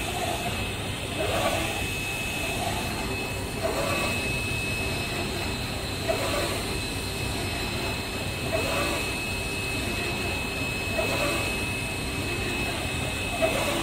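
UV flatbed inkjet printer running a print job: the print-head carriage sweeps back and forth, with a pass swelling up about every two and a half seconds. Under it run a steady machine hum and a constant high whine.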